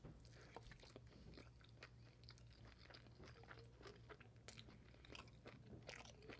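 Faint close-up chewing of a mouthful of goat vindaloo and rice, with irregular soft mouth clicks. The goat meat is tough and chewy.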